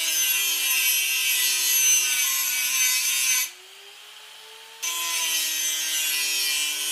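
A steady machine hum under a loud hiss. The hiss drops out for about a second and a half midway while the hum carries on, then comes back.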